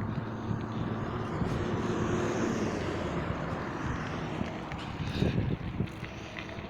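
Street traffic on a wet road: a vehicle passes, its tyre hiss swelling about two seconds in, over a steady hum of engines.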